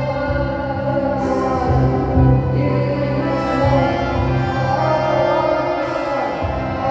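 Two electronic keyboards playing held chords over a steady bass line.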